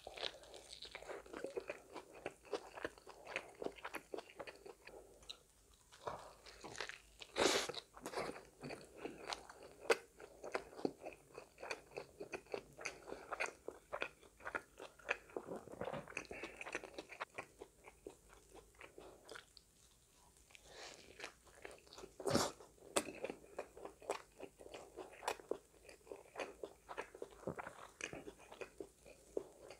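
Close-miked biting and chewing of a Korean rice burger, a burger whose buns are pressed rice patties, with crisp lettuce: irregular crunching mouthfuls, with sharper, louder crunches about seven and twenty-two seconds in.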